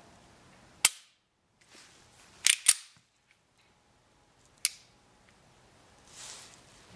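Dry-fire clicks of a Taurus G2C pistol with an aftermarket flat-face trigger: four sharp metallic clicks as the trigger breaks, about a second in, a quick pair about 2.5 seconds in, and one more near 5 seconds, with soft handling rustle near the end.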